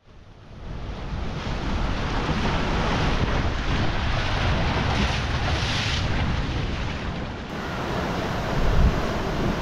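Sea waves breaking and washing over low rocks at the shoreline, fading in at the start. Wind buffets the microphone, with a stronger gust near the end.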